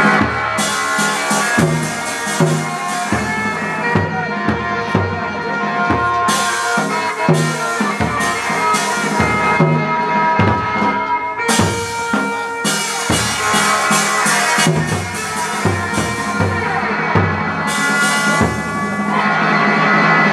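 Hát bội theatre ensemble music: a sustained, piercing reed horn over steady drum beats.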